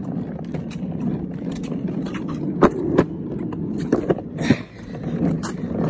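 A child's ride-on toy police car rolling over a concrete sidewalk: a steady rumble of wheels on the pavement, broken by a few sharp knocks.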